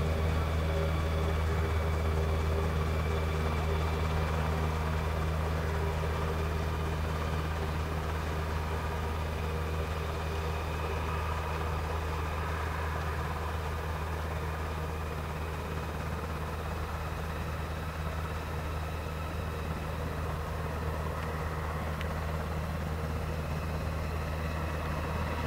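U.S. Navy SH-60F Seahawk running on the ground with its rotors turning: a steady low rotor thrum under the high, even whine of its twin T700 turboshaft engines.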